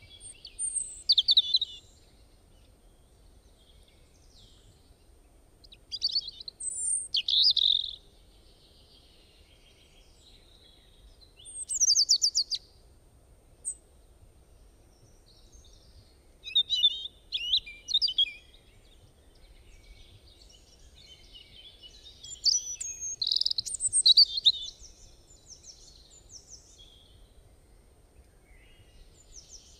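Songbird singing: short bright chirping and trilling phrases, separated by pauses of a few seconds.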